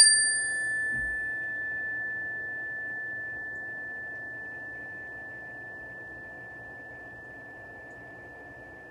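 Single-bar resonator chime, a metal tube on a wooden base, struck once with a mallet. It rings one clear, pure tone that fades slowly over several seconds, and its bright upper overtones die away within the first second or two.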